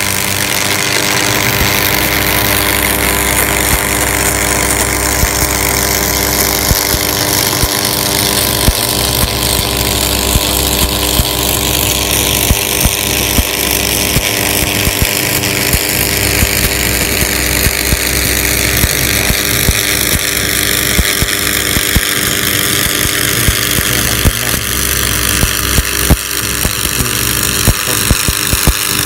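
Stick (shielded metal arc) welding: the electrode's arc crackling and sizzling steadily as it lays a fillet weld along a corner joint, over a steady electrical hum.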